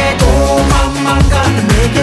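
Pop music with a steady beat.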